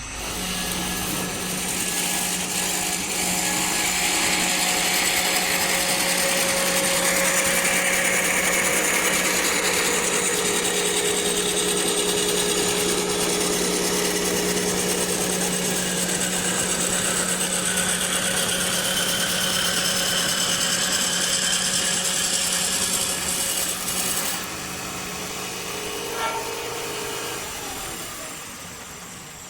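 Automatic wood-turning lathe running with a steady motor hum while its cutter shaves a spinning wood blank, a loud hissing cut. About three-quarters of the way through the cutting noise drops to a quieter run, and it fades out near the end.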